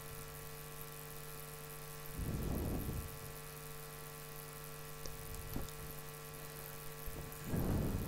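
Steady electrical mains hum, with two brief low, muffled sounds: one about two seconds in and one near the end.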